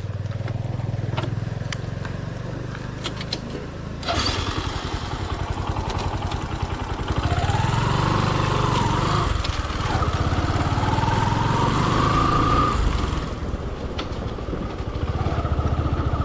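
Motorcycle engine running at low speed on a rough track, rising in pitch twice as it revs, over a rushing noise that grows louder about four seconds in.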